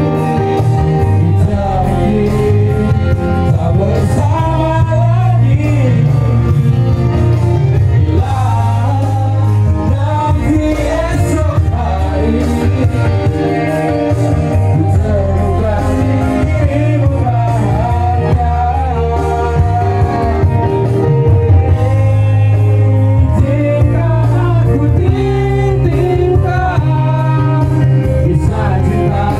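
Men singing a love song through handheld microphones and a PA, over electronic keyboard accompaniment with a strong, steady bass line.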